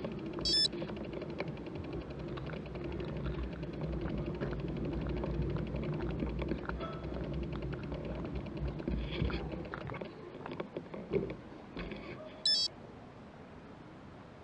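Steady low rumble of wind and outdoor background with scattered small clicks, broken twice by a short, high electronic beep: about half a second in and again near the end.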